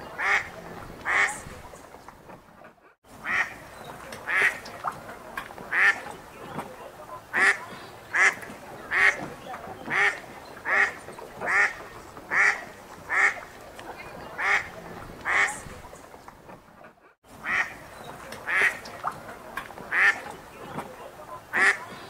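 Ducks quacking in a steady run of short, loud quacks, roughly one a second, broken twice by a brief gap.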